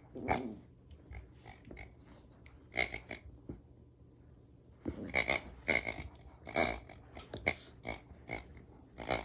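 Scottish terrier growling and giving short, gruff barks as it attacks and shakes a toy pig: a string of brief outbursts, bunched together in the second half.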